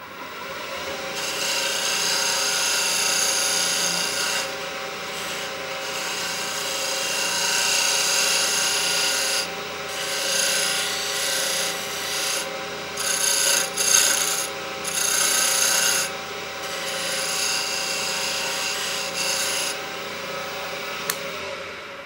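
Wood lathe running with a steady motor hum while a skew chisel cuts beads into a spinning walnut spindle, the scraping hiss of the cut coming and going in passes with brief pauses. The lathe starts at the beginning and spins down near the end.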